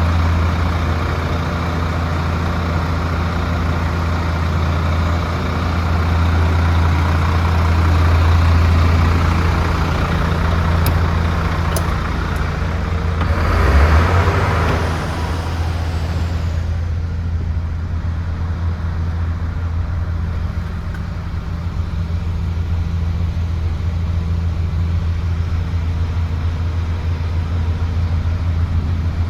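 DAF CF75 truck's Paccar turbo diesel engine idling steadily with a deep, even drone. About halfway through, a brief louder rushing noise rises and fades, and after it the higher hiss in the background drops away.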